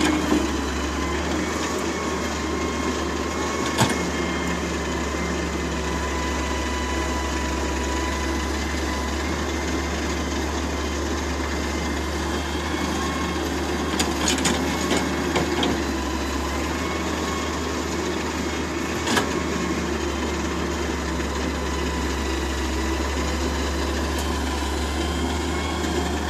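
Hitachi wheeled excavator's diesel engine running steadily under work while it digs and loads soil, with a few sharp knocks scattered through.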